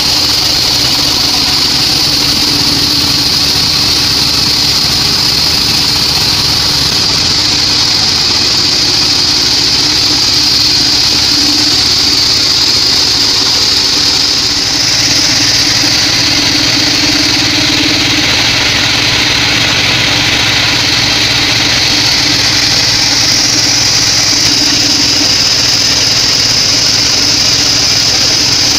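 Bandsaw sawmill running steadily while sawing weru timber: a continuous motor drone under a high, steady hiss from the blade.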